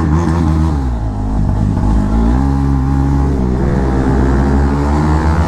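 Motorcycle engine with a loud modified exhaust, revving as it rides. The pitch climbs, drops about a second in, climbs again at about two seconds and then holds steady.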